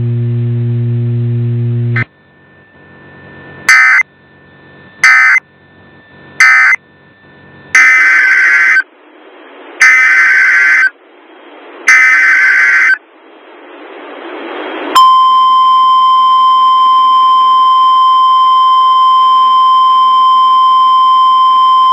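Emergency Alert System SAME data bursts after two seconds of steady low hum: three short warbling data bursts about a second and a half apart, closing one alert, then three longer one-second header bursts that open the next warning. About fifteen seconds in, the steady high single-pitch NOAA Weather Radio 1050 Hz warning alarm tone starts and holds to the end.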